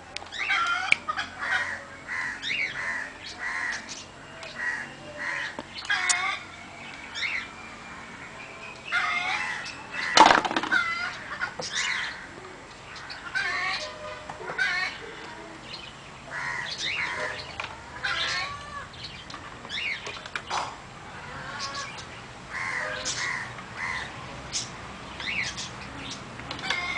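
Birds calling around the garden, many short chirping calls one after another, with a single loud knock about ten seconds in.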